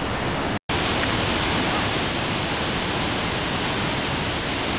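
Steady roar of a large waterfall crashing onto rocks, an even rushing noise with no pitch. It drops out for an instant about half a second in, where the recording cuts.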